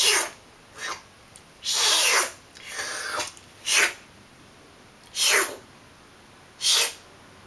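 A series of about seven breathy whooshes blown through pursed lips, imitating wind. Each is short, several slide downward in pitch, and there are quiet gaps between them.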